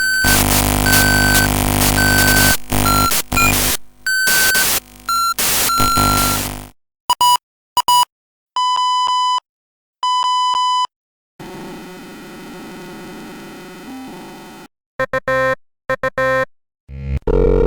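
A run of electronic interference and error sound effects. First comes dense, glitchy digital noise with short beeps cutting in, for about seven seconds. After a few clicks come two identical electronic error beeps, a fainter steady buzz, and then stuttering glitch bursts near the end.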